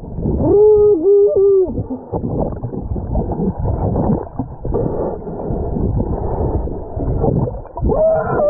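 A person calling out a name, muffled and drawn-out, twice near the start and once more near the end. Between the calls there is an uneven rumbling noise.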